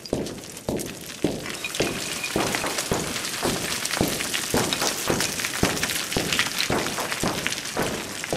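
Boots and trekking poles crunching down a steep slope of loose scree, about two steps a second, with loose rock rattling and sliding underfoot.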